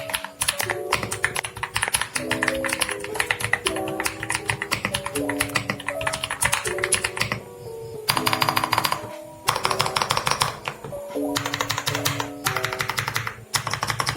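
Fast typing on a WEIKAV WK68 gasket-mounted mechanical keyboard with linear switches: a quick run of soft, thocky keystrokes, broken by a few short pauses, over background music.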